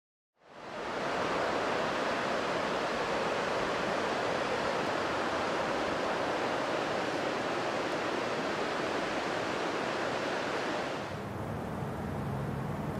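A steady rushing hiss fades in over the first second and holds evenly. About eleven seconds in it drops and turns into a lower, duller rumble.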